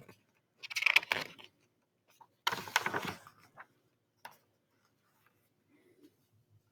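Pages of a paper picture book being turned: two brief rustles of paper, then a light tap.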